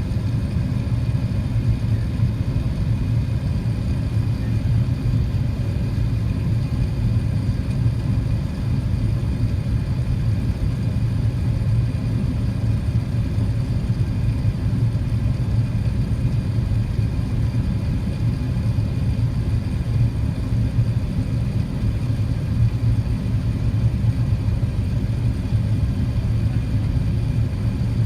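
Steady low drone inside an Airbus A380 airliner's cabin: engine and airflow noise at an even level, with no change in pitch or loudness.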